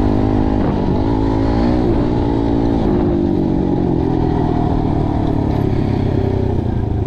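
Kawasaki dirt bike engine running at a steady throttle while riding a dirt trail, its note dipping and rising briefly a second or two in.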